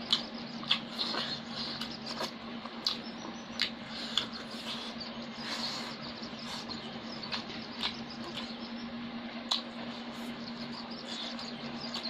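Close-up eating sounds: chewing and lip-smacking, with scattered sharp clicks as food is eaten by hand from a steel plate, over a steady low hum.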